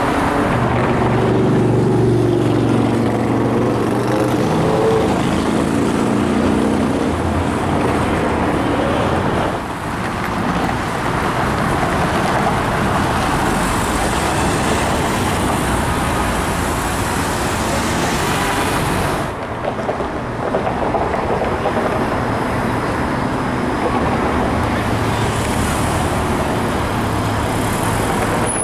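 City street traffic noise: cars and TTC streetcars passing, a steady mix of engine and tyre noise. A low hum with slowly shifting tones runs through the first several seconds.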